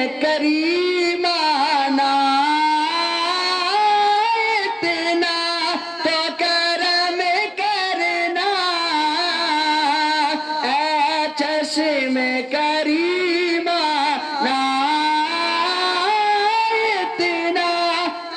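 A man's voice singing an unaccompanied devotional recitation into a handheld microphone. He holds long, wavering, ornamented notes, with brief pauses for breath.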